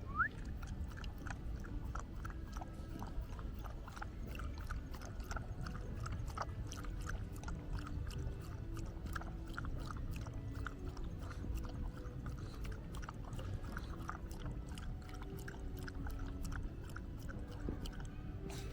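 Shiba Inu lapping water from a bowl: a quick, uneven run of wet tongue clicks and slurps, a few a second.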